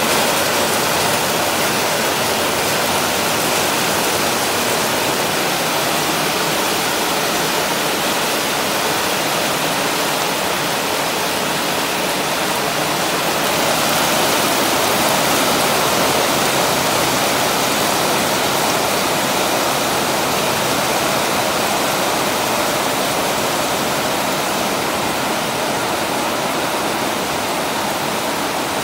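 Heavy tropical downpour: a dense, steady hiss of rain that holds at an even level throughout.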